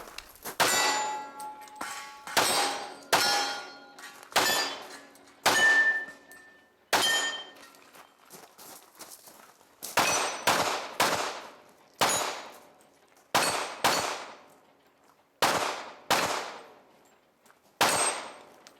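Pistol-caliber carbine firing a string of single shots, about a second or less apart, with a pause of about three seconds midway. The first several shots leave a metallic clang and ring of steel targets being hit.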